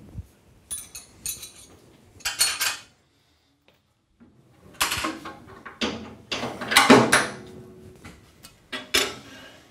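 Metal clinks and clatter as a spanner and a steel straight edge are handled and set down on a planer thicknesser's metal tables. There are several short bursts, with the loudest run of clanks in the second half and one more knock near the end.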